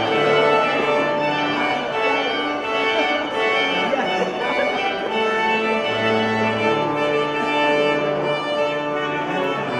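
Church organ playing slow, sustained chords over held bass notes that change every second or two.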